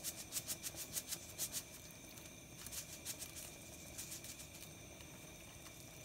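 Salt shaken from a cylindrical canister onto raw pork steak: faint quick ticks of the shaking, about four or five a second for the first second and a half, then only now and then.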